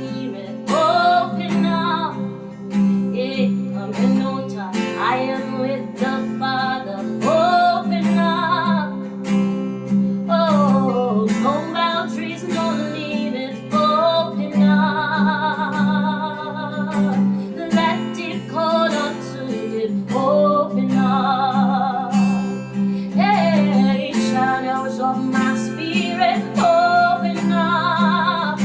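Music: acoustic guitar strumming under a singing voice that holds long wavering notes with vibrato, with no clear words.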